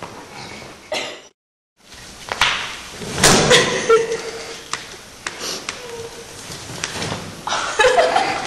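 Repeated knocks and clatter of a metal-framed folding sun lounger on a stage floor as someone tumbles in it and scrambles out. The sound cuts out completely for a moment about a second in.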